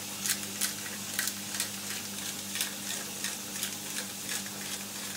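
Diced chicken and bacon sizzling in a hot stainless steel frying pan as a spatula stirs them, with frequent small crackles and ticks over a steady frying hiss and a steady low hum.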